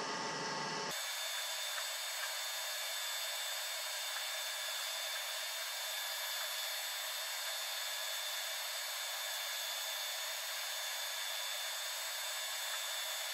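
Steady, even background hiss with a few faint high whines, its low rumble dropping away abruptly about a second in; no distinct tool sounds stand out.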